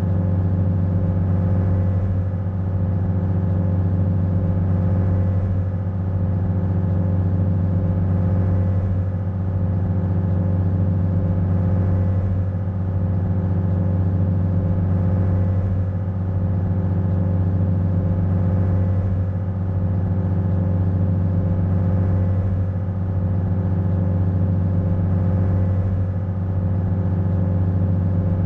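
Ferry's engine running steadily while the ferry is under way, a deep hum with a stack of steady tones above it that swells and eases slightly every three to four seconds.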